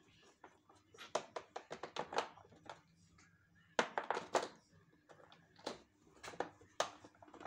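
A screwdriver clicking and knocking against the plastic housing of a Samsung canister vacuum cleaner as screws are turned: a run of irregular small clicks and taps, bunched in a few clusters with short pauses between them.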